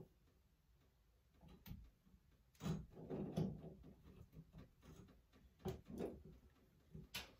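Faint clicks, taps and scrapes of a handheld shower head's fittings being handled and hand-tightened on the shower arm to stop a leak at the connection. There is a cluster of louder knocks about three seconds in and two sharper clicks near six seconds.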